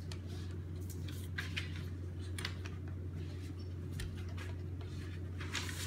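Pen or marker scratching and tapping on paper in short irregular strokes, over a steady low hum.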